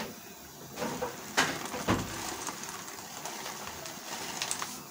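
Pasta boiling in a pan of foaming water, with a plastic pasta packet handled close by: crinkling and many small ticks, and two sharp knocks about one and a half and two seconds in.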